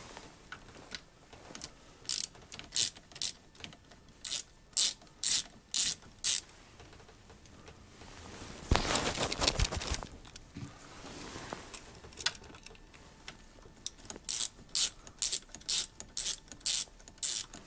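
Hand socket ratchet clicking in two runs of quick strokes as small bolts holding a blanking plate to the aluminium inlet manifold are undone. About halfway through there is a louder burst of noise lasting about a second.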